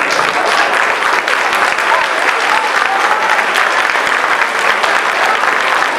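A hall audience applauding steadily throughout, with voices calling out faintly in the crowd.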